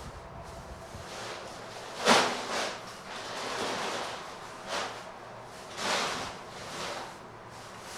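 Wind gusting: a rushing noise that rises and falls in several swells, the strongest about two seconds in.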